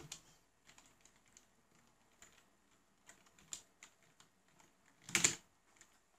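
Computer keyboard keys being typed, faint scattered clicks with one much louder key strike about five seconds in.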